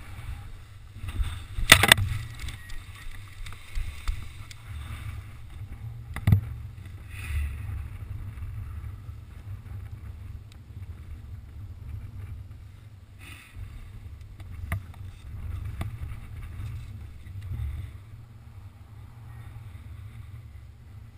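Wind buffeting a head-mounted camera's microphone in paraglider flight: a steady low rumble, with a few sharp knocks, the loudest about two seconds in.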